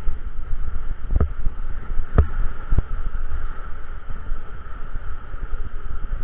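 Steady rush of wind buffeting an action camera's microphone while skiing down a groomed piste, with the hiss of skis sliding on snow. A few dull knocks come about one, two and three seconds in.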